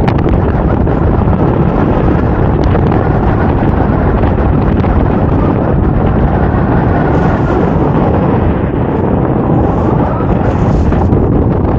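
Steady, loud wind noise buffeting the microphone from the airflow of a paraglider in flight.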